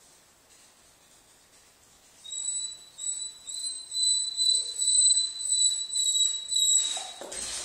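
German Shepherd whining in a string of high, thin cries that hold a steady pitch, starting about two seconds in and coming about twice a second. Near the end the whining stops and clicking steps begin, its claws on the floor.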